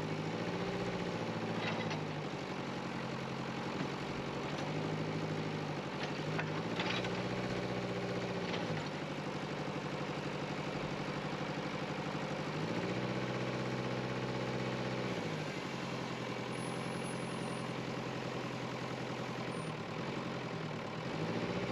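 Excavator's diesel engine running while it levels soil, its note rising and falling every few seconds as the hydraulics take load.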